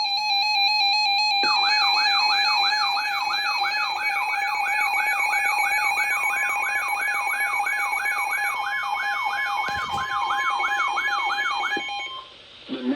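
Emergency Alert System attention tone. A steady electronic tone carries on throughout, and from about a second and a half in a second tone sweeps rapidly up and down, about two and a half times a second, like a warbling siren. The tones cut off near the end, just before a voice begins reading the warning.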